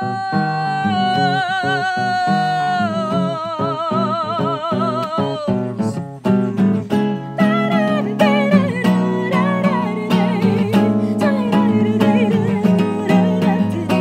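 A woman singing long, held notes with vibrato, accompanied by a classical acoustic guitar being plucked and strummed. About six seconds in the voice breaks off briefly, then returns with a quicker, winding melody over the guitar.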